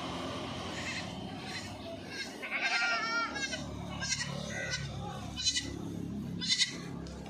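Goat bleating once, a short quavering call about two and a half seconds in, followed by a few sharp clicks.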